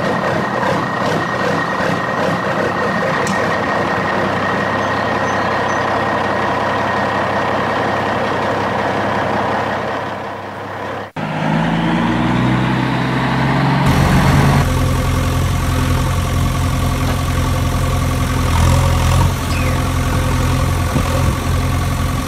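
Truck engine sound laid over a toy dump truck being pushed: a steady engine hum, then a sudden break about eleven seconds in. After the break an engine starts with a rising pitch and settles into a steady low idle.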